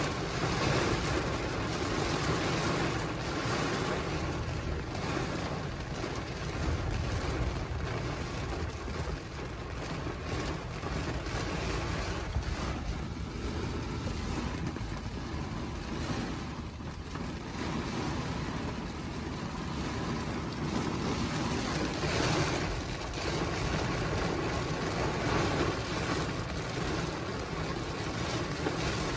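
Heavy rain pelting a car's roof and windshield, heard from inside the cabin: a steady rushing hiss full of fine, irregular drop impacts.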